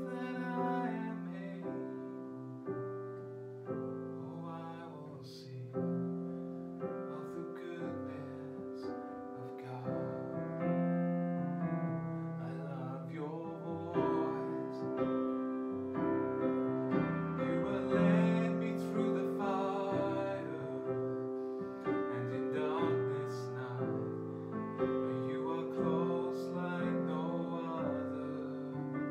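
Yamaha digital piano playing sustained chords of a slow worship song, with a man's voice singing along in places.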